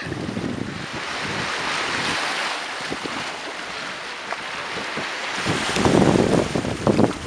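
Sea waves washing and splashing against rocks, with wind buffeting the microphone; the wind noise comes in louder gusts in the last couple of seconds.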